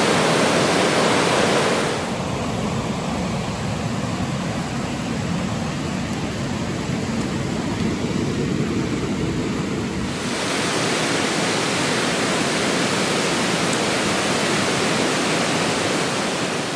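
Steady rush of flowing stream water; its tone shifts at about two seconds and again at about ten seconds.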